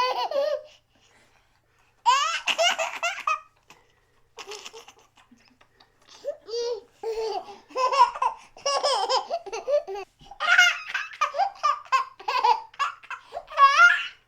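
A baby laughing in repeated bouts of high-pitched giggles and squeals, with short pauses between them; the longest run of laughter fills the second half.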